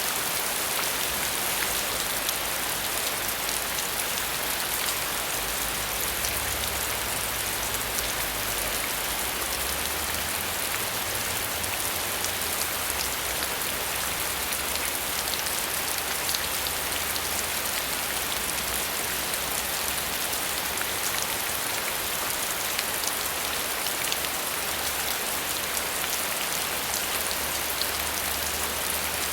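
Steady rain falling, a continuous patter of many small drops. A faint low hum underneath shifts in pitch now and then.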